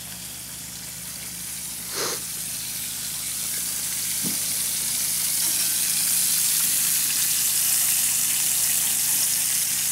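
Bacon sizzling in a frying pan on a two-burner camp stove, the sizzle growing louder over the first few seconds. A short knock about two seconds in.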